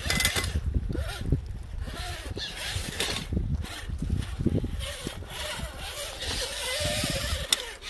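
A 1/8-scale rock crawler RC car's motor and gears whine as it crawls over rock, with its tyres scraping and scrabbling on the stone. The whine wavers in pitch in the second half, and there is a sharp click near the end.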